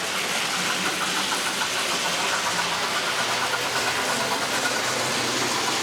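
Hornby 4-6-0 model steam locomotive running fast on its track, the analogue sound box in its tender giving a steady, rapid steam-engine sound over the running of the model and its carriages.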